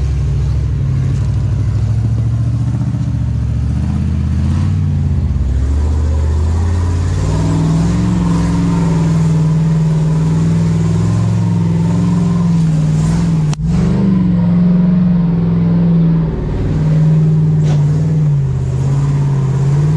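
Off-road vehicle's engine running under throttle. Its revs step up about seven seconds in and then hold high and fairly steady. The sound breaks off for an instant a little past the middle, and the revs dip briefly soon after.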